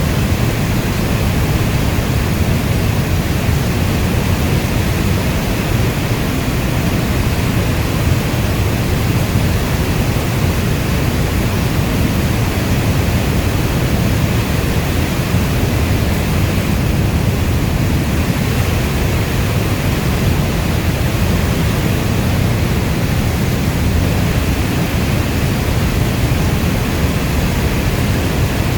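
Rainstorm ambience: an even, unbroken wash of heavy rain with a deep rumble beneath it.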